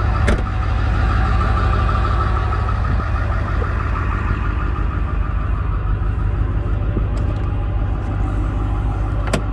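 2002 Ford Excursion's 7.3-litre Power Stroke turbo-diesel V8 idling steadily as a low rumble. Two short clicks stand out, one just after the start and one near the end.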